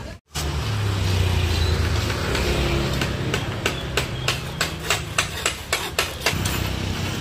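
An engine idles with a low, steady hum. From about three seconds in comes a quick run of about ten sharp knocks, roughly three a second, from work on a bamboo frame.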